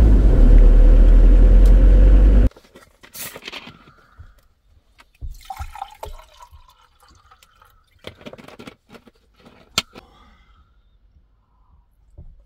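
Ford Transit van driving on a damp road, a loud steady engine and tyre rumble heard inside the cab, which cuts off suddenly about two and a half seconds in. Then quiet, with a drink being poured from a bottle into a glass and a few light clicks.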